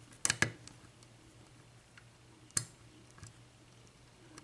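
Lock pick clicking against the pins inside an LSDA pin-tumbler lock cylinder while picking. There are two sharp metallic clicks close together near the start and a third about two and a half seconds in.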